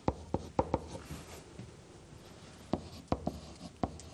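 Stylus tapping and scraping on the surface of an interactive whiteboard as a hand writes: a few quick taps, a pause of about two seconds, then a second run of taps near the end.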